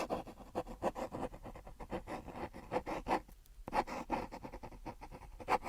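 Irregular run of quick scratching strokes, several a second, with short gaps about a third and three quarters of the way in.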